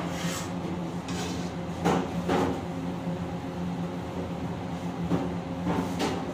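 Metal ladle scraping and knocking against a wok as food is stirred, a few clanks about two seconds in and again near the end, over a steady background hum.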